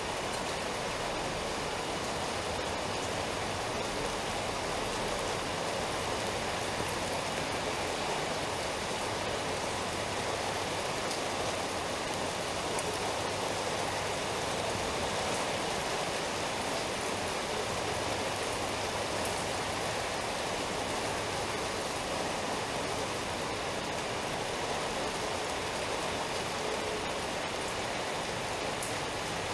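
Steady rain falling, an even hiss of water that keeps up without a break.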